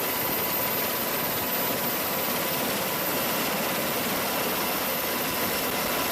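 Military helicopter's turbine engine running steadily: a constant rushing noise with a faint steady whine.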